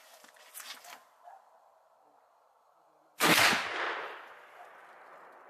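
A single rifle shot from an Uberti replica of the first Model 1894 Winchester lever-action in .38-55, loaded with 44 grains of 3F Swiss black powder. It comes about three seconds in, after a few faint clicks, and its echo dies away over about two seconds.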